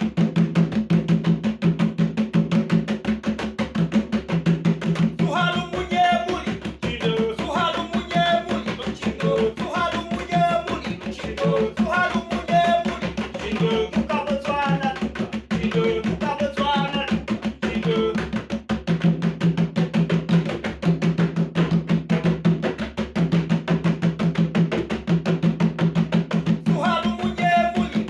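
Music with a fast, steady drum beat; a voice sings from about five seconds in until about eighteen seconds, and comes back near the end.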